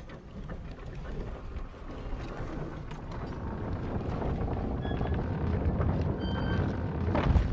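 Low rumbling wind-like ambience that slowly builds, with a sharp hit just before the end.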